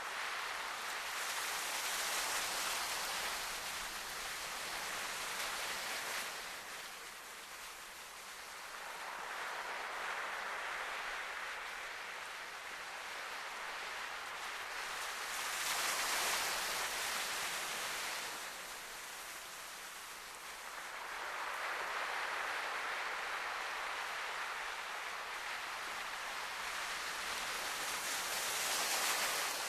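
Sea waves washing against a rocky shore, a steady hiss that swells and ebbs slowly, surging loudest about halfway through and again near the end.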